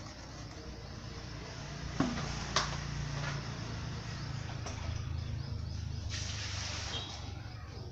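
A low droning hum that swells through the middle, with two sharp knocks about two and two and a half seconds in.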